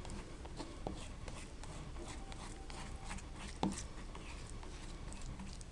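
Faint scraping of a spoon gathering ground green chilli paste in a stone mortar, with a couple of light knocks of the spoon against the stone.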